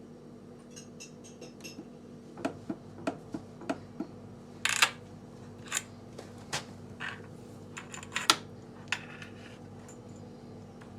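Light clicks, knocks and clinks of objects being handled, with a brief scraping rustle about five seconds in, over a steady low hum.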